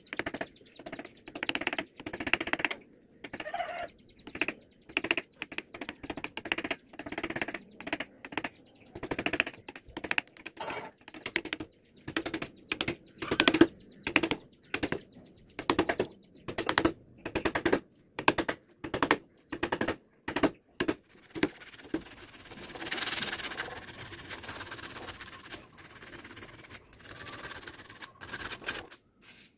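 Flat wood chisel paring short slices from a carved wooden cat face, one scraping cut after another, about one to two a second. About 22 seconds in, the cuts give way to a steadier rubbing hiss as the carved surface is sanded, loudest for a couple of seconds and then fainter.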